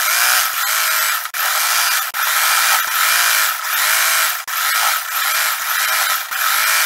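Electric sewing machine running, stitching through cotton skirt fabric, with a few brief stops along the way.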